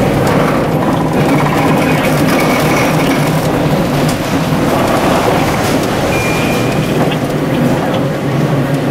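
Historic Gotha-built tram running along street track, heard from inside the driver's cab: a steady running noise, with a brief high-pitched tone twice.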